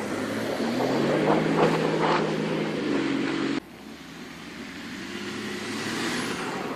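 BMW X5 E53 3.0d's turbodiesel straight-six revving hard as the SUV slides sideways through snow, with the tyres churning snow. About halfway through the sound drops suddenly to a fainter, distant engine note that slowly grows louder as the car comes back.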